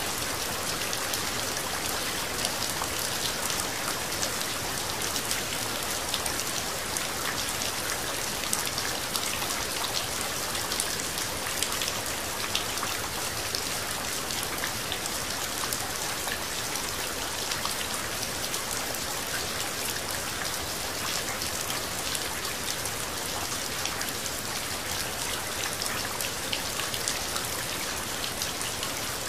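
Steady rain falling: an even hiss of rain with many separate drops hitting close by, no thunder.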